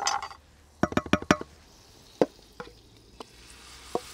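A string of sharp taps and knocks from a wooden spoon working potato batter out of a stainless steel bowl into a frying pan, with a faint sizzle building near the end as the batter meets the hot buttered pan.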